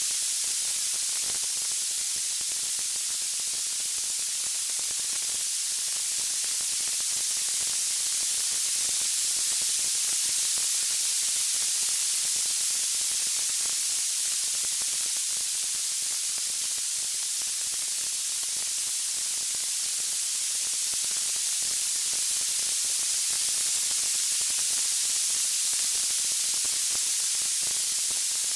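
Steady, high-pitched hiss like static or spray, swelling and easing slowly in level, with no distinct crackles or pops.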